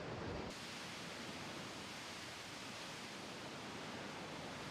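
A steady, even hiss with no pitch or rhythm, cutting in abruptly about half a second in.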